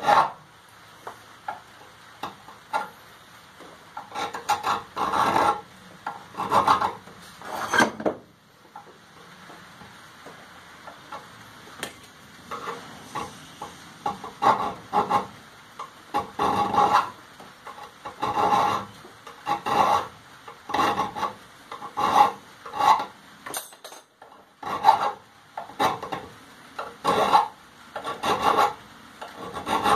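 Round chainsaw file rasping back and forth across forged steel, cutting small grooves into the corners of the piece. The strokes come roughly one a second, with a pause of a few seconds about eight seconds in.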